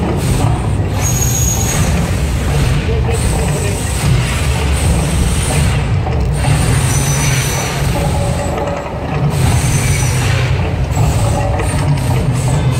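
Mirage volcano show's eruption effects: a loud, deep, steady rumble with repeated surges of rushing noise as flame jets over the lagoon fire balls of fire.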